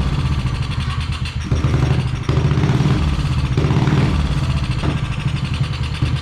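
Mini trike's small Honda GX-series single-cylinder engine running unevenly just after being started, its level dipping and surging as it struggles to keep running.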